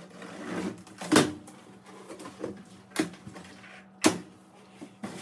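Cardboard box being opened by hand: scissors working through packing tape and the flaps rustling and pulled open, with three sharp clicks spread across the few seconds.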